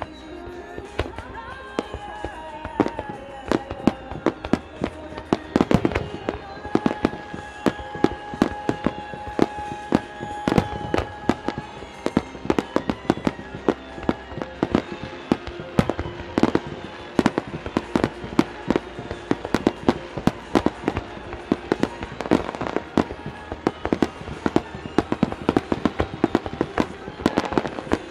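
Aerial firework shells bursting one after another: a dense run of sharp bangs, several a second, with music playing underneath.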